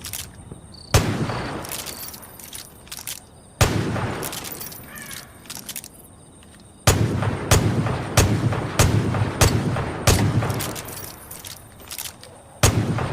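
Gunshots from a Smith & Wesson Model 29 .44 Magnum revolver: two single shots, each with a long echoing tail, then from about seven seconds in a rapid string of shots about two a second.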